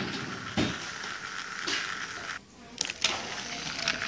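Battery-powered toy train running on plastic track: a steady high motor whirr and gear rattle, with several sharp clicks as it runs over track joints and points. The whirr drops briefly a little past halfway.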